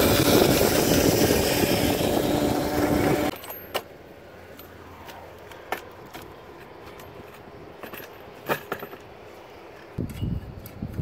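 Riding the homemade electric kart, with its 1000 W 48 V DC motor and chain drive: a loud rushing wind and road noise with a faint steady hum, cut off abruptly after about three seconds. Then scattered sharp metal clicks and knocks as the kart's steel frame is taken apart by hand, with a brief low thump near the end.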